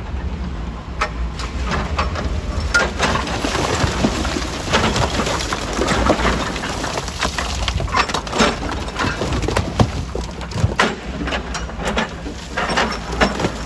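Rock being crushed in a stone crusher: irregular sharp cracks and clattering of breaking, tumbling stone over the steady low drone of the running machinery.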